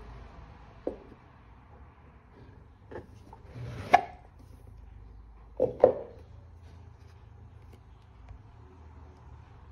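Cardboard watch boxes being handled and set down on a tabletop: a few light knocks, the loudest about four seconds in after a short sliding scrape, then two quick knocks close together about two seconds later.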